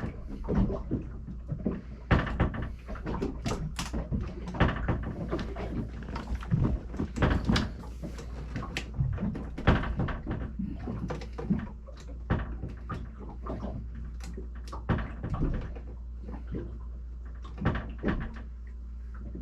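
Small clicks, knocks and rattles of a cabinet door and its latch hardware being handled and fitted, dense for the first ten seconds or so and then sparser, over a steady low hum.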